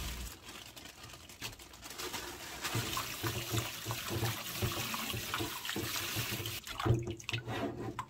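Water running from a tap and splashing into a sink or basin, with an irregular low murmur underneath from about three seconds in.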